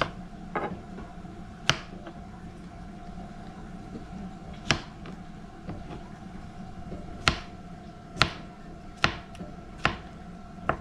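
Kitchen knife cutting Nanking cherries on a plastic cutting board: a sharp tap each time the blade hits the board, about eight at uneven intervals and closer together in the second half, over a steady low hum.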